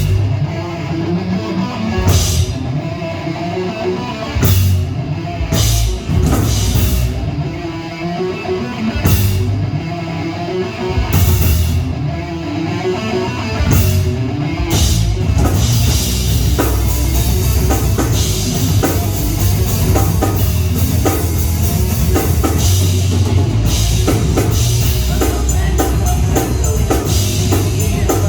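Live heavy metal band playing: distorted electric guitars, bass and a drum kit. Widely spaced cymbal crashes punctuate the first half, then about halfway through the drums settle into a fast, driving beat with constant cymbals.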